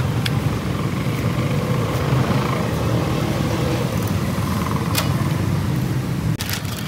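Steady low mechanical rumble, with a few faint clicks.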